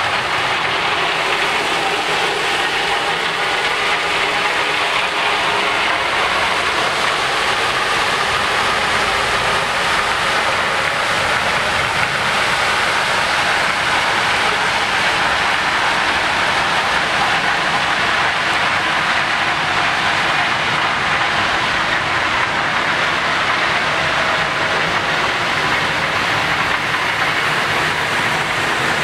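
Ballast hopper cars rolling slowly past while dumping crushed-rock ballast from their bottom gates onto the track: a steady rushing hiss of falling rock over the rolling of the steel wheels.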